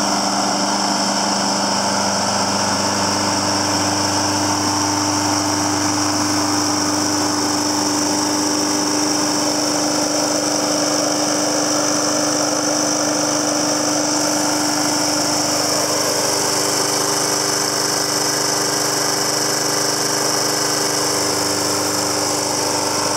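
Briggs & Stratton engine of a 1998 John Deere JS60 push lawn mower running steadily at an even speed.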